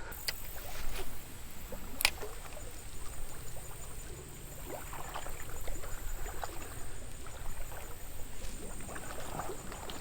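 Creek water trickling, with a sharp click about two seconds in and scattered small sounds after it.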